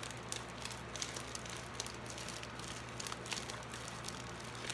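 Fluffy lotion slime being stirred and squished, giving many small sticky clicks and crackles over the steady hum of an electric fan.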